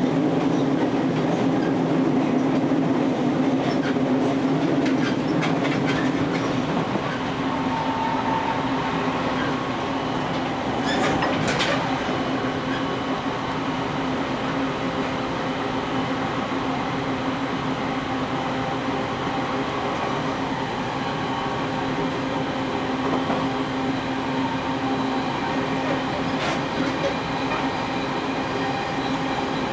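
JR Kyushu 813 series 200-subseries electric train (Toshiba GTO inverter) running at a steady speed, heard from inside near the cab: a steady hum of several even tones. Wheels clack over rail joints a few times, once a few seconds in and again about eleven seconds in.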